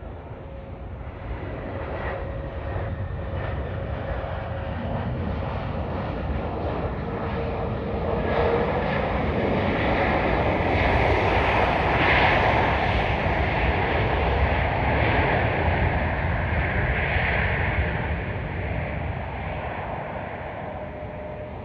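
Jet airliner engines passing close by: the noise swells for the first half, is loudest about halfway through, then fades away.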